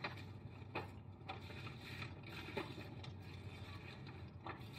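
Tissue paper crinkling in a few short rustles as it is pulled from a paper gift bag, over a faint, steady low rumble.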